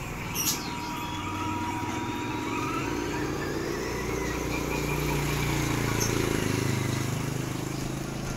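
1/10-scale RC Hino 700 6x4 truck driving off, with a steady low engine-like hum that swells and fades and a faint rising whine as it picks up speed. A short hiss comes about half a second in.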